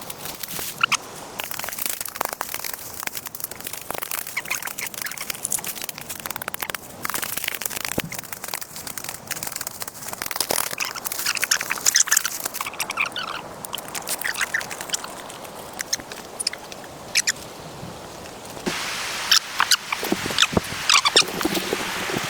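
Birds chirping amid scattered sharp clicks and knocks. A steady rushing hiss comes in about nineteen seconds in.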